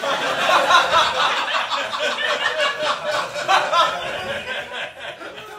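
Studio audience laughing after a stand-up punchline, dying away near the end.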